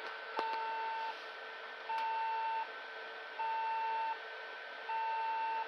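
HP Compaq desktop PC's motherboard beeping a POST error code: long single-pitched beeps, each about three quarters of a second, repeating every second and a half, over the steady hum of the running machine. The machine shows no picture, and its memory slots are empty.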